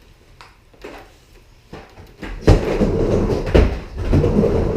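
Skateboard riding on a garage micro mini half pipe: a few light knocks at first, then from about two seconds in a loud rumble of the wheels rolling across the ramp, with two heavy thuds as the board hits it.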